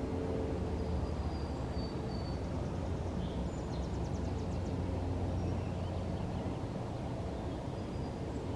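Steady low outdoor rumble with faint, scattered bird chirps, and a brief rapid high trill about four seconds in.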